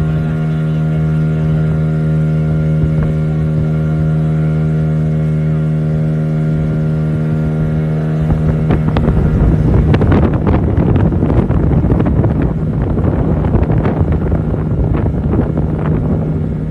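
Motorboat engine running with a steady hum at an unchanging pitch. About eight seconds in, a loud rushing, crackling noise of water and wind joins it.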